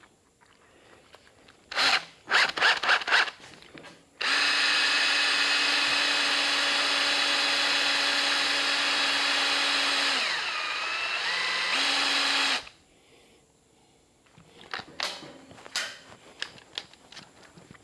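Cordless drill running for about eight seconds, spinning a length of thin stainless steel wire clamped in a vise to twist and straighten it. Near the end the motor slows and drops in pitch for about a second and a half, then speeds up again before it stops. A few knocks of handling come before it and some clatter after.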